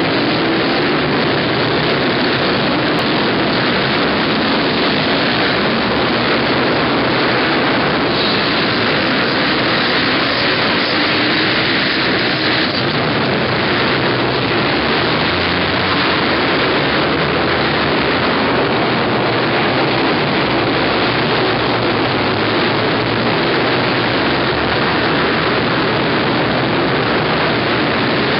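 Many small 50 cc two-stroke motocross minibikes running together, a steady high buzzing engine noise with no single bike standing out, slightly louder for a few seconds near the middle.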